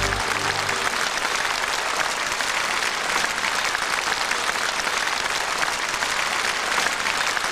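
Large concert-hall audience applauding steadily, a dense even clatter of many hands. The band's last held chord dies away in the first second.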